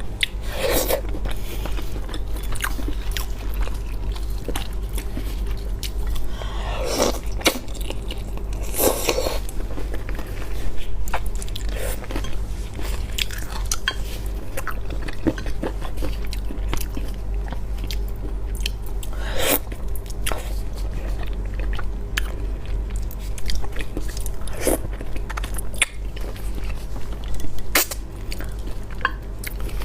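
A person chewing and biting spicy monkfish, with scattered crunches and wet mouth sounds, over a steady low hum.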